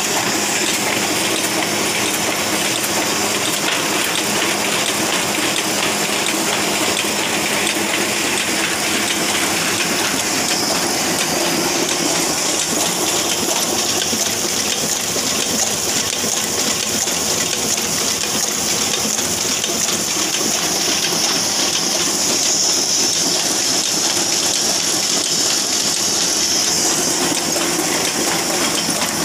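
Sheet-fed offset printing press running steadily: a continuous dense clatter and hiss from its rollers, grippers and sheet delivery as sheets are printed and stacked.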